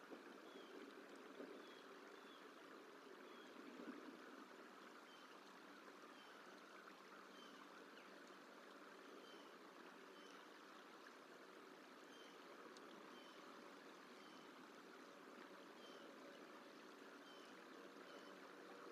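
Faint, steady rush of running water. Over it, a small bird repeats a short, high call note roughly once a second.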